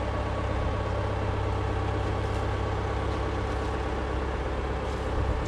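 John Deere excavator's diesel engine running steadily close by, a constant low hum.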